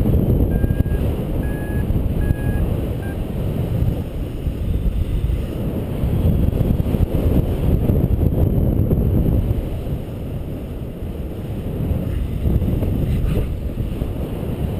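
Airflow rushing over the microphone during a paraglider flight. In the first three seconds, a paragliding variometer gives four short beeps, the tone it sounds when the glider is climbing.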